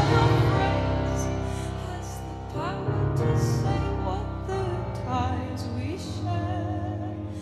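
A rock band playing live with keyboard: a softer passage that dies away over the first couple of seconds, then picks up again with held notes and a wavering melody line.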